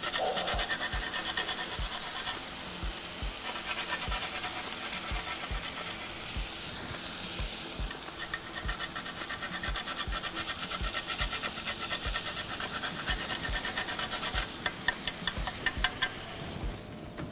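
Whole nutmeg grated on a small metal hand grater: a steady scratchy rasp of quick repeated strokes that stops near the end.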